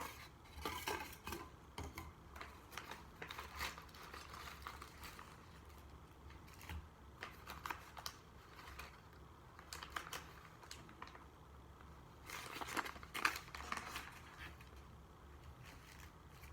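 Small phone-repair tools and parts being handled: scattered faint clicks and taps, with a denser run of them near the end.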